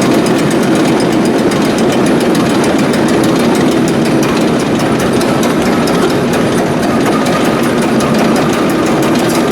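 Akasaka AX31R marine diesel main engine running steadily and loudly on the test bed, with a fast, even firing clatter over a low drone.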